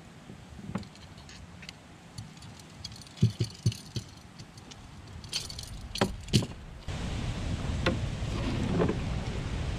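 Small clicks, clinks and rattles of hooks and tackle being handled on a plastic kayak deck, with several sharp knocks against the hull. About seven seconds in, a steady low rushing noise suddenly sets in as the kayak gets under way.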